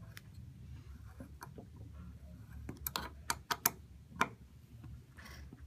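Hex key turning a partially threaded screw tight in a metal projector-mount plate: a run of small sharp metallic clicks and ticks, most of them bunched together about three to four seconds in.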